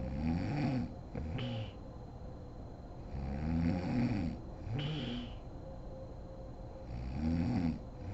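A sleeping woman snoring in a steady rhythm: three snores about three and a half seconds apart, each a long snore that rises and falls in pitch, followed by a shorter one.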